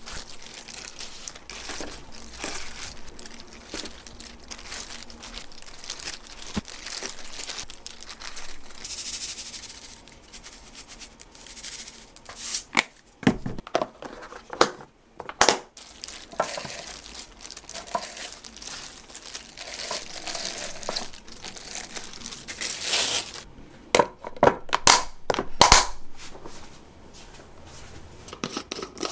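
Thin plastic crinkling as gloved hands handle kimbap and plastic wrap, broken by sharp plastic clacks as a plastic lunch box's lid is fitted and pressed shut, a few about halfway through and more near the end.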